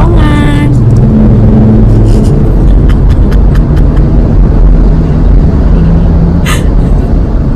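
Loud, steady road and engine rumble inside a moving car's cabin, heavy in the low end. A short vocal sound comes right at the start, and a brief hiss about six and a half seconds in.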